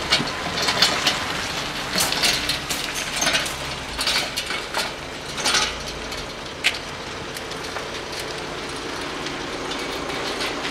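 A vehicle engine running steadily, with scattered sharp clicks and knocks in the first several seconds, the last one a little before seven seconds in.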